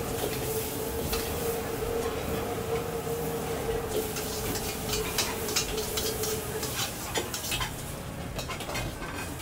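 Metal spatulas and ladles scraping and clanking against woks as noodles are stir-fried over gas burners, with a frying sizzle and a steady hum that stops about two-thirds of the way through.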